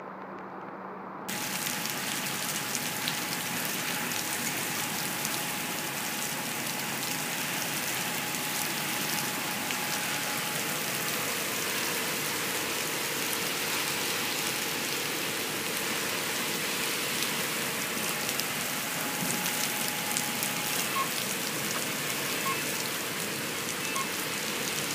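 Heavy rain pouring onto a wet street and pavement: a steady, loud hiss dotted with splashes. For about the first second, before it cuts in suddenly, there is the duller rush of a flooded creek.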